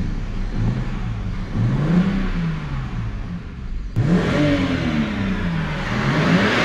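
BMW E92 325i straight-six petrol engine being revved while parked, its pitch rising and falling several times as the throttle is blipped, heard from inside the cabin. The engine runs cleanly with its thermostat and oil leak freshly repaired, and the owner calls it amazing.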